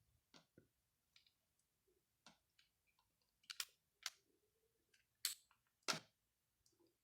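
Faint scattered clicks and a few sharper snaps of a network cable's outer plastic jacket being cut and stripped off by hand. The four loudest snaps come between about three and a half and six seconds in.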